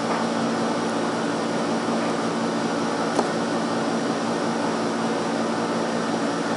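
A steady machine hum with an even hiss running underneath, and one faint click about three seconds in.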